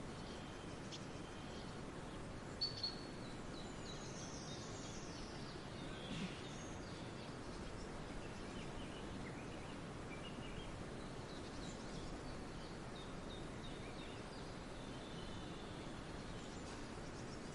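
Forest ambience: a steady background hiss with scattered chirps and short whistled calls from several songbirds, two brief louder notes coming a little under three seconds in.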